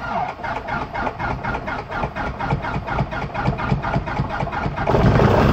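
Scottish Aviation Bulldog's four-cylinder Lycoming engine being cranked by its starter after priming, turning over in a steady rhythm of compression beats. About five seconds in it catches and runs, suddenly louder.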